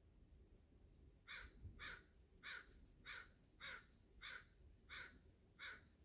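American crow cawing eight times in an even series, about one and a half calls a second, starting just over a second in.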